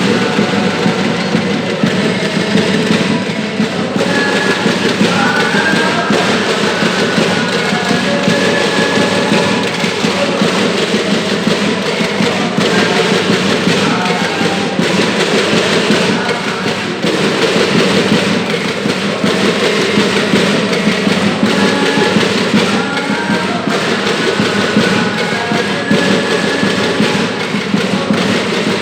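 Music with busy percussion: quick wooden-sounding knocks and drums under a melody, running on steadily.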